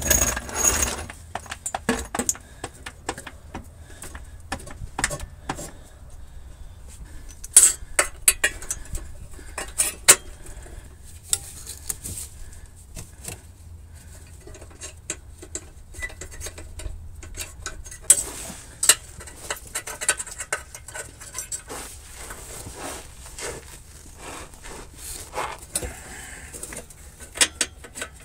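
Hand tools clinking and clicking on metal exhaust hardware: short, irregular metallic knocks and clinks, with a faint steady low hum underneath.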